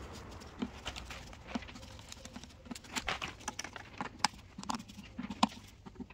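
Irregular sharp clicks and light metallic taps from a hand driver with a 10 mm socket unscrewing the valve-cover bolts on a BMW N62 V8, the loudest clicks about four and five and a half seconds in.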